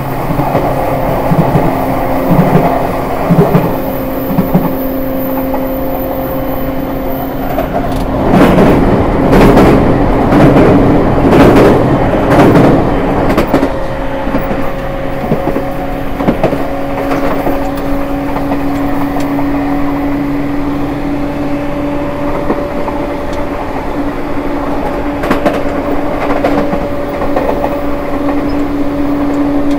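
Running sound of an E231 series 1000 commuter train heard at the gangway between cars: the Hitachi IGBT-VVVF inverter and traction motors give a steady two-tone hum that rises slightly in pitch in the second half, over wheel and rail noise. A louder stretch of clattering comes in the middle.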